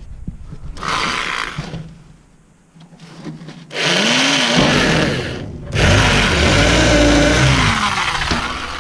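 Cordless drill running in bursts, drilling holes through a manure spreader's conveyor belt: a short run about a second in, then two longer runs with the motor's pitch rising and falling as the bit loads up.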